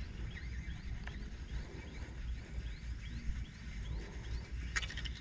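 A small animal calling: a quick series of short, rising chirps, about three a second, over a low steady rumble.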